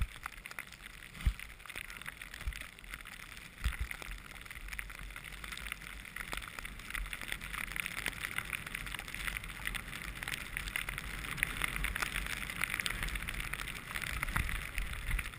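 Skis sliding through fresh powder snow, a steady hiss that grows louder over the second half as speed picks up, with a few low thumps in the first few seconds.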